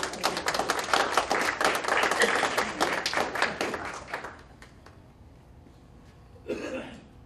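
A small audience applauding, the clapping fading away about four seconds in.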